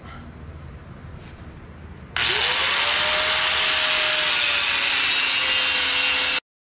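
Corded electric angle grinder switched on about two seconds in, its motor whining up to speed, then grinding a steel bracket with a harsh, steady hiss. The whine sags slightly under load, and the sound cuts off suddenly near the end.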